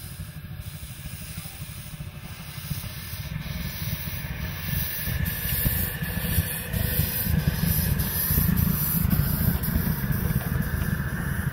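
Quarter-scale live steam locomotive, a copy of Denver & Rio Grande 2-8-0 #268, running past on 9-inch gauge track with steam hissing. The rumble of the riding cars' wheels on the rails grows louder as the train goes by.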